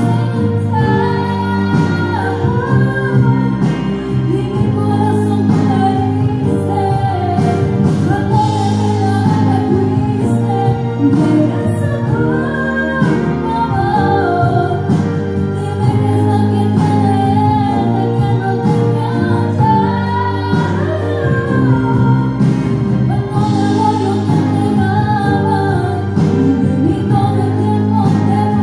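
A woman singing a slow song, holding long notes, over instrumental backing with a steady beat.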